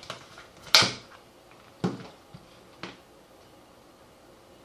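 Sharp plastic clicks from a Kaiweets KM601 digital multimeter's case being handled and opened to fit its batteries: three clicks about a second apart, the first the loudest.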